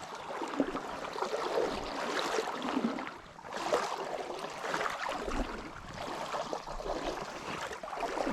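Stream water splashing and sloshing around a person's legs as they wade, coming in uneven surges about every second or two.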